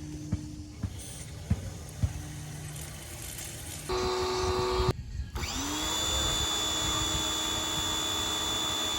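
Greenworks electric pressure washer's motor starting: a few light knocks, then the motor runs for about a second, cuts out, and spins up again with a rising whine that settles into a steady high whine for the rest.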